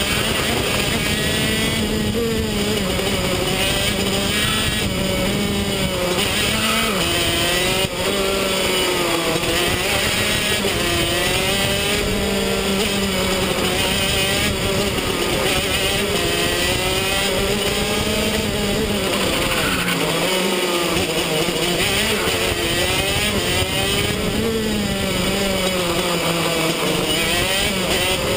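125cc two-stroke KZ shifter kart engine at racing speed, heard onboard, its pitch climbing and falling over and over as it accelerates and slows through the corners.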